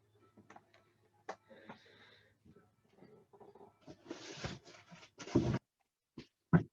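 Graded comic slabs being handled: small clicks and a rustling shuffle, then two sharp knocks of hard plastic being set down near the end.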